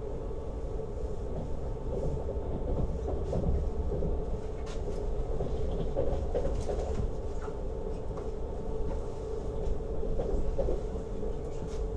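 Lastochka electric train running at speed: a steady rumble and hum from the wheels on the rails, with scattered clicks over the track.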